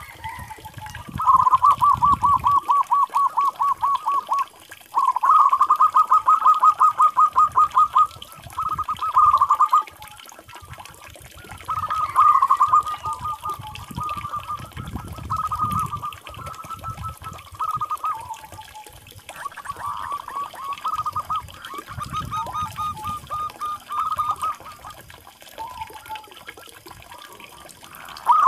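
Zebra dove (perkutut) cooing: repeated phrases of rapid staccato coos, each a quick run of notes. The phrases are loud through the first ten seconds or so, then come softer and more broken.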